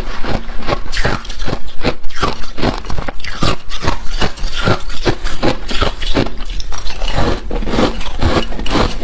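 Freezer frost crunching in quick, repeated close-up strokes, several a second.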